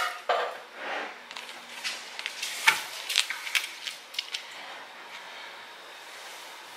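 A spoon spreading whipped topping in an aluminium foil pie tin: scattered light clicks and scrapes of the spoon against the foil, the sharpest about two and a half seconds in, after which it goes quiet.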